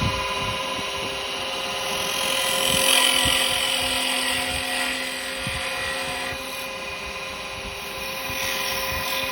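Wood lathe running with a steady motor hum while a turning tool cuts the spinning yew; the hiss of the cut swells about three seconds in.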